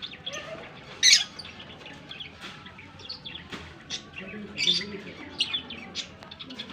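Caged birds chirping, short sharp calls coming several times a second, with a louder one about a second in.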